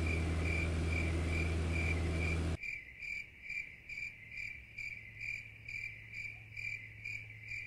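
Cricket chirping, about two chirps a second, over the steady low drone of a Piper PA-28's engine. The engine sound cuts out abruptly about two and a half seconds in, leaving only the chirping.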